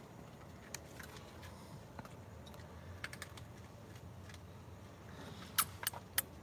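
Sparse small clicks and crunches from a raccoon eating dry pet food. A few sharp, louder clicks come close together near the end.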